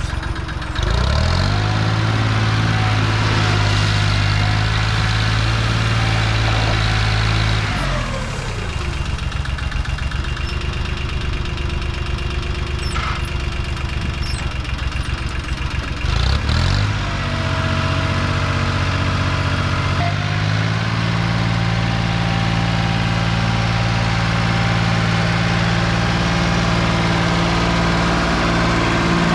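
International 275 tractor engine running under a working loader: it revs up about a second in, drops back at about eight seconds, then revs up again at about sixteen and a half seconds and holds steady.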